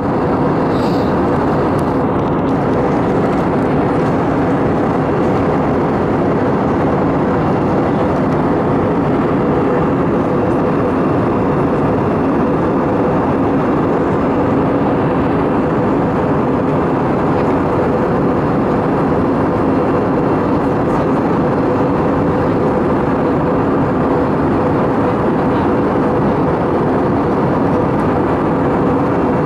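Steady in-flight cabin noise of an Airbus A320 airliner: the even rush and drone of the jet engine and airflow, with a steady low hum running through it.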